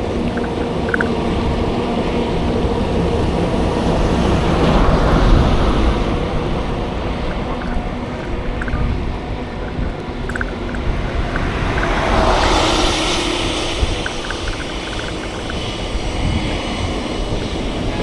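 Road traffic: a steady low engine rumble, with a vehicle passing about five seconds in and another louder one about twelve seconds in, and light scattered rattles.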